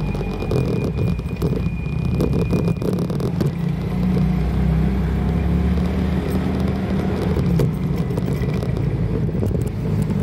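Motorcycle engine running steadily at low speed, with road and wind noise.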